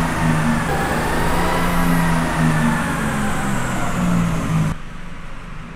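Ram heavy-duty pickup's Cummins inline-six diesel running on a chassis dyno, its tyres driving the rollers. The drone is fairly steady with a faint whine above it, and it cuts off abruptly about a second before the end.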